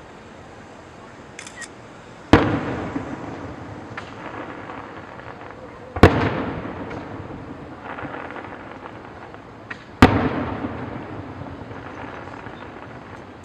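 Aerial fireworks bursting overhead: three loud booms about four seconds apart, each trailing off in a long rumble with crackling. There is a smaller pop or two between them.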